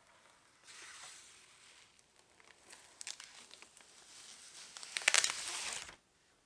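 Plastic crinkling and crackling, as of film or packaging being handled, in several spells. The loudest spell comes near the end and stops abruptly about six seconds in.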